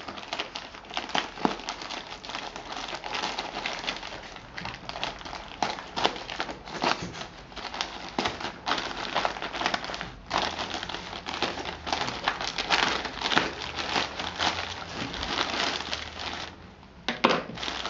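Packaging crinkling and crackling as it is handled and unwrapped, a dense run of irregular rustles with a brief lull near the end.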